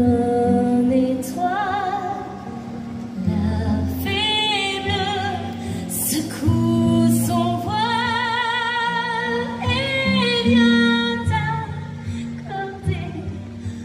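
A woman singing a sustained, vibrato-laden melody with band accompaniment, in a live stage performance.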